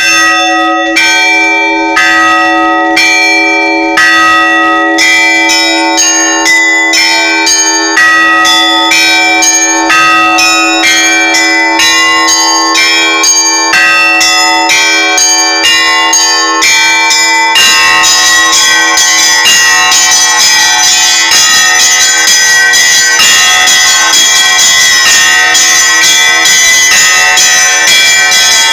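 Russian Orthodox church bells in festal ringing: single strikes about once a second at first, quickening after about five seconds, then from about two-thirds of the way through several bells ring densely together over one bell's lingering tone.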